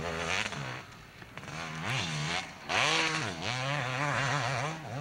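Motocross dirt bike engine revving hard as it is ridden round the track, its pitch rising and falling with the throttle. It drops off briefly about a second in and again about two and a half seconds in.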